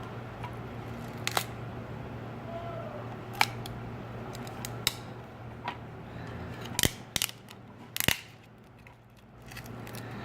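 Scattered sharp clicks and snaps of a pry tool working a heated, broken LCD screen loose from a Samsung J320 phone's frame, the loudest a quick cluster about two thirds of the way in and one more just after, over a steady low hum.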